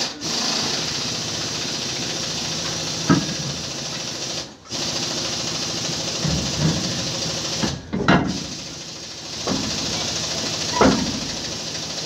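Pneumatic air tool running in long bursts with a steady hiss of air and a low hum, stopping briefly twice. There are three sharp metal knocks, about three, eight and eleven seconds in, during work on a truck wheel hub.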